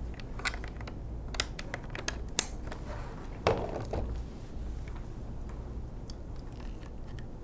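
Plastic desk phone and its cables being handled: scattered light clicks and taps, a sharp click about two and a half seconds in, and a duller knock about a second later as the phone is set down on the desk.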